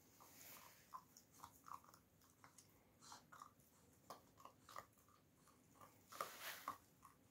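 Central Asian Shepherd (Alabai) puppy chewing and gnawing on a piece of meat: faint, irregular clicks and crunches, with a louder flurry about six seconds in.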